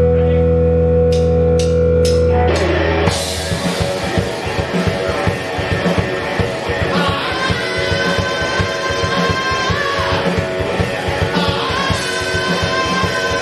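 Live rock band of electric guitar, bass guitar and drum kit. The band holds one sustained chord under four sharp hits, then about three seconds in the whole band kicks in with a driving drum beat.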